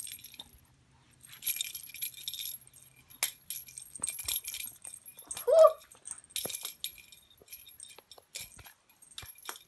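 Small bell on a cat toy jingling in several bouts of shaking, with light taps and clicks between. A brief voiced sound, a short exclamation or a kitten's cry, comes about five and a half seconds in.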